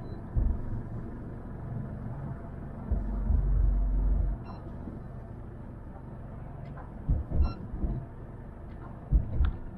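Boat engine running steadily at low speed, a low hum. Several heavier low thumps come over it about three seconds in, around seven seconds and just after nine seconds.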